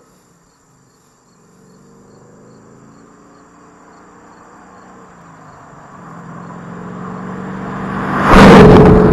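A car approaching. Its engine grows steadily louder over several seconds and is loudest near the end as it passes close by.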